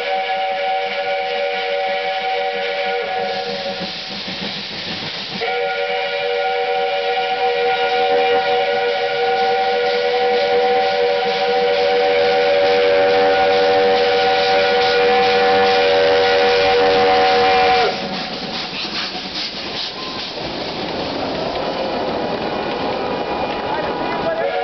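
BDZ class 609.76 2-10-2 narrow-gauge steam locomotive sounding its whistle, several notes at once, in two long blasts. The first is broken off by a short gap of hiss, and the second is held about twelve seconds and cuts off sharply. The train then runs close past with steam hiss and the rattle of carriages over the track.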